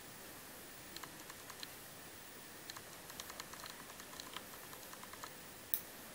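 Faint, irregular light clicks and ticks, several a second, with one sharper click near the end.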